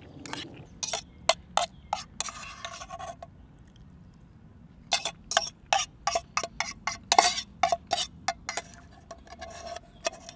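Metal fork clinking and scraping against a metal camp pot while the last of the food is scooped out. Sharp clinks with a short ringing tone, a brief scrape about two seconds in, then a quick flurry of clinks from about five to nine seconds.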